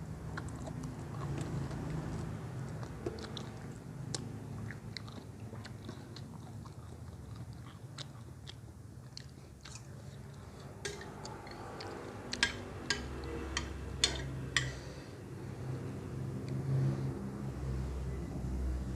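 Close-up chewing and biting of crisp food, raw papaya salad and crunchy fresh vegetables, with scattered small crunches and a few sharper, louder crunches or clicks about two-thirds of the way through.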